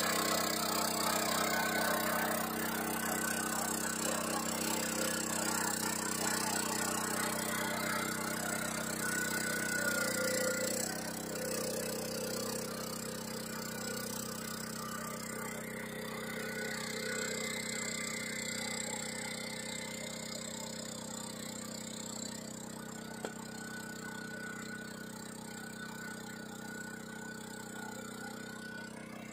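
Small engine of a riding-type four-row rice transplanter running steadily as it drives and plants through a flooded paddy, growing gradually fainter as the machine moves away.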